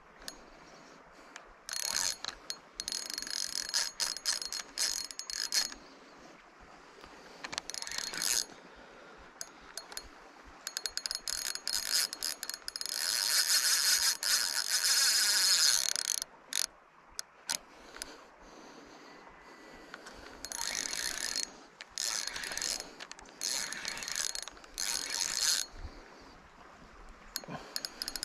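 Spinning fishing reel ratcheting in repeated bursts of one to a few seconds, the longest about three seconds midway, while a hooked salmon is played on the line.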